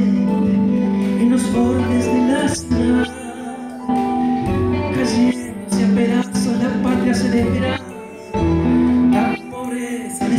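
Live band playing a zamba, the Argentine folk dance song, with a man singing into a microphone over electric guitar, keyboard and bellows instrument.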